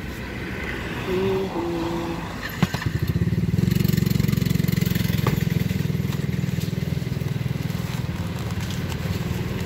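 Motorcycle engine running at idle, a loud, fast, even low pulsing that comes in about three seconds in and stays steady.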